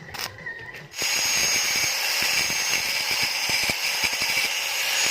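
Electric power tool starting up about a second in and running steadily with a high whine, after a few knocks.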